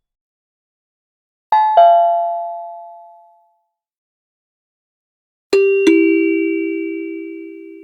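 Two-tone doorbell chime sounding ding-dong twice. A higher-pitched ding-dong comes about a second and a half in, its two notes falling and fading over about two seconds. A lower-pitched ding-dong follows near the end and is still ringing out.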